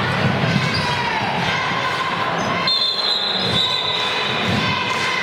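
Basketball game play on a hardwood gym floor: a ball bouncing and sneakers squeaking among the noise of the crowd. One long high-pitched squeal sounds a little past halfway.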